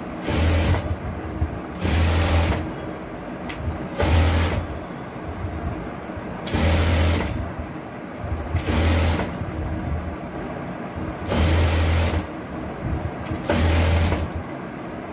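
Sewing machine stitching in short runs of under a second, about seven of them roughly two seconds apart, with a lower hum between runs. It is hemming the double-folded edge of a bias-cut strip for a neck binding.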